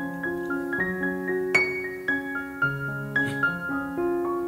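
Background piano music: a run of single notes and chords, each struck and left to ring.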